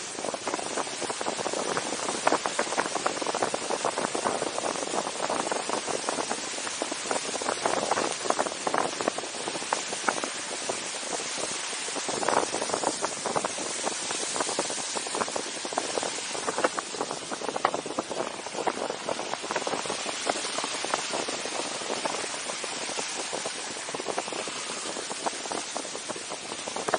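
Steady rush of wind and tyre noise from a car driving on a slushy, snow-covered road, picked up by a camera mounted outside above the car's roof. Dense crackling, rattling clicks run through it.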